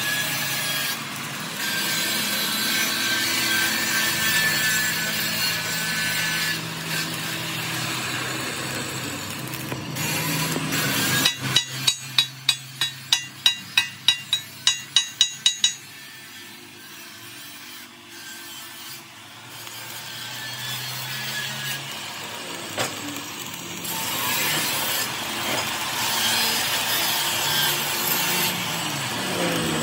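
Arc welding on a steel truck axle housing: the arc crackles and hisses steadily. Partway through the crackle gives way to a run of about a dozen sharp knocks, roughly three a second. The welding crackle returns after a quieter stretch.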